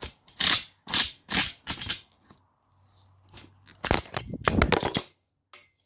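Steel scribe tip scratching across a scrap metal test piece: four quick scratches in the first two seconds, then a longer run of scratching about four seconds in.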